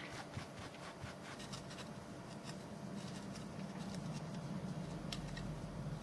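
Microfiber cloth rubbing and scrubbing on a mouse's circuit board, wiping flux cleaner off freshly soldered switch joints: a faint scratchy rubbing with many small ticks.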